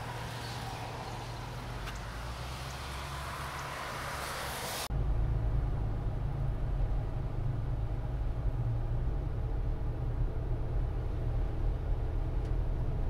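A steady hiss for about five seconds, then a sudden cut to the low, steady rumble of a car driving.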